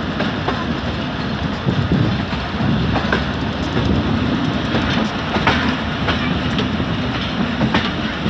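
Passenger coaches of a train running along the track, heard from an open carriage window: a steady rumble of wheels on rails, with sharp clacks at uneven intervals as the wheels cross rail joints.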